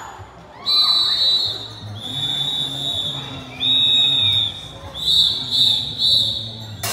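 A drum major's whistle blowing a series of cue blasts to the drum and lyre corps: several held, high, steady blasts, then three short ones near the end.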